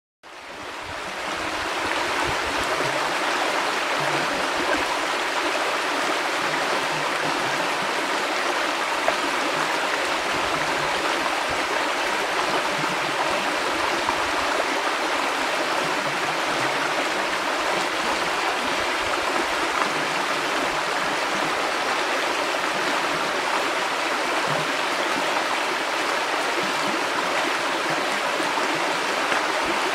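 River water flowing in a steady, even rush, fading in over the first two seconds.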